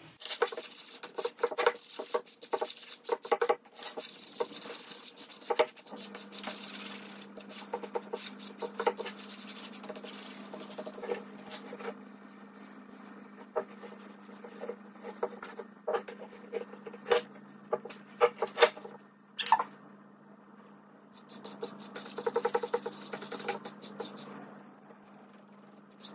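Paintbrush bristles scrubbing paint back and forth across a painting board, in runs of quick rasping strokes with short pauses.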